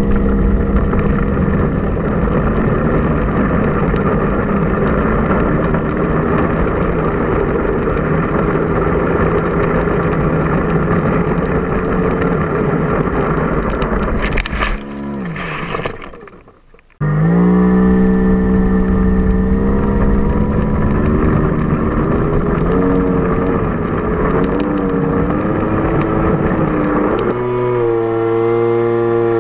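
Brushless electric motor and propeller of a small foam-board RC plane, picked up by the plane's own onboard camera, running at high throttle with a steady whine over rushing air. About halfway through there is a brief burst of noise as the plane crashes into long grass, and the motor winds down and stops. A couple of seconds later it spools up again, its pitch wavering and then stepping up near the end as the throttle changes.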